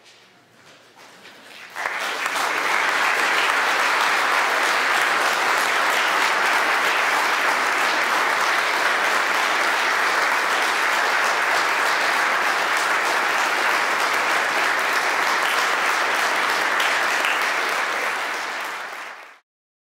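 Audience applauding: a few scattered claps swell into full, steady applause about two seconds in, which tapers and then cuts off near the end.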